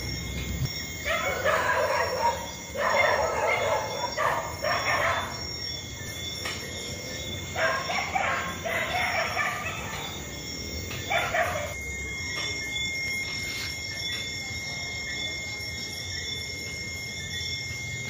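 Rooster crowing, about four crows spread over the first twelve seconds, over a faint steady high-pitched tone.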